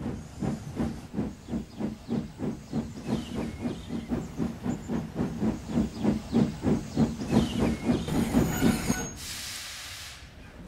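Steam locomotive chuffing at a steady beat of about three puffs a second, growing louder, then a brief hiss of released steam near the end.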